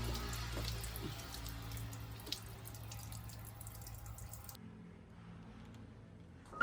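Water running and dripping, as from a tap or pipe, with scattered drip clicks over a low hum; the sound cuts suddenly to something quieter about two-thirds through.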